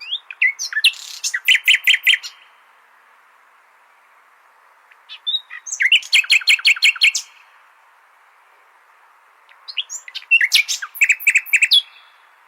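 Nightingale singing: three phrases of about two seconds each, separated by pauses, each opening with a few separate notes and then a rapid run of repeated notes. A steady hiss lies underneath.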